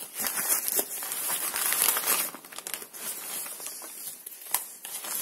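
Crumpled wrapping paper crinkling and rustling as it is pulled open by hand. The rustling is busiest for the first couple of seconds, then turns softer with scattered crackles.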